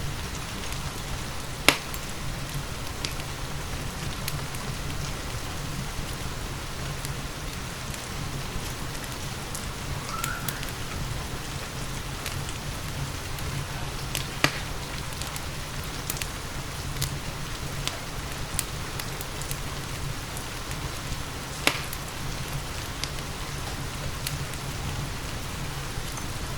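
Steady rain together with a crackling wood fire: a continuous hiss of rain with small ticks, and three sharp pops that stand out, about two seconds in, near the middle and about three-quarters of the way through.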